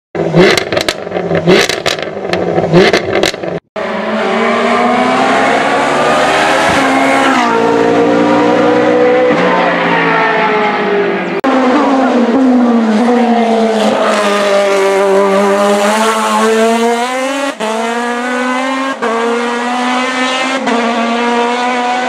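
Race cars on a hill climb at full throttle: after a string of sharp, loud bangs in the first few seconds, engines are heard hard on the power, their pitch climbing and then dropping repeatedly through gear changes and braking.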